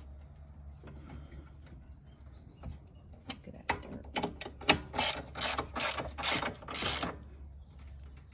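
Ratchet wrench being worked in short strokes, its pawl clicking in quick runs about two or three times a second, starting about three seconds in and stopping about seven seconds in.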